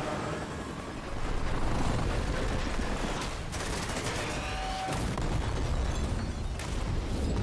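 Action-film sound effects: dense gunfire with booms and a few sharp impacts.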